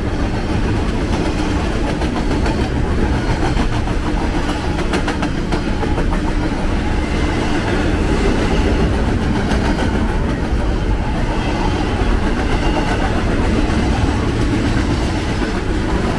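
BNSF double-stack intermodal freight train passing at speed: a steady loud rumble and rattle of well-car wheels on the rails, with a run of rapid clicks a few seconds in.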